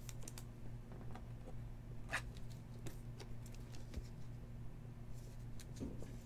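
Faint rustling and light clicks of a trading card being slid into a soft plastic sleeve and a rigid plastic top loader, a few small scrapes scattered through, over a low steady hum.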